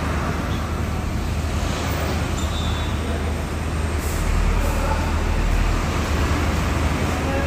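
Heavy equipment's diesel engine running with a steady low drone, a little louder from about halfway through.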